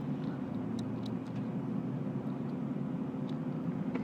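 Robotic retrieval mechanism of a Shop 24 automated vending store running inside the machine: a steady low mechanical hum with a few faint clicks.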